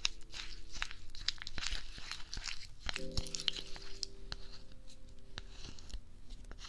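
Close-up crackling and sticky tearing sounds as fingers rub and press a soft, sticky material on a binaural microphone's ear, in a dense run of small crackles and clicks. Faint background music with held chords plays underneath, changing chord about three seconds in.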